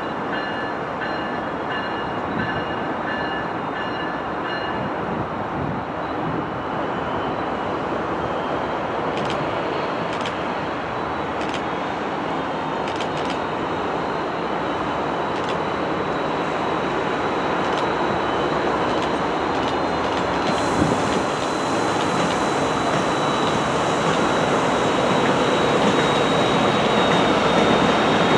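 MARC Siemens SC-44 Charger diesel locomotive and its bilevel coaches approaching and passing, a steady rumble of engine and wheels on rail that grows steadily louder. A thin high whine runs over it, with scattered sharp ticks partway through.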